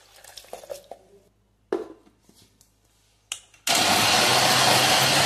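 Water poured into a steel mixer-grinder jar, then a knock and a click as the jar is closed; about two thirds of the way in, the electric mixer grinder switches on and runs loud and steady, wet-grinding chopped onion, tomato and spices into a paste.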